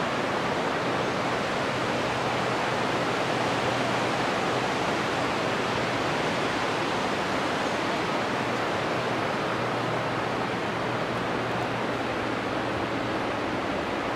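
Steady rushing of river water in the canyon below: an even, unbroken roar of the Capilano River.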